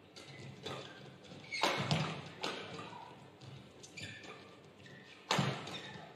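Badminton rackets hitting the shuttlecock during a fast doubles rally: a run of sharp, irregularly spaced smacks with a short echo from the hall. The loudest hits come about two seconds in and again near the end.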